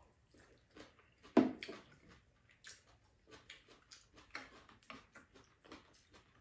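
Close-up eating sounds: a string of short, irregular mouth smacks and chewing, with light clicks of spoon and chopsticks against bowls and pan. One louder mouth sound comes about a second and a half in.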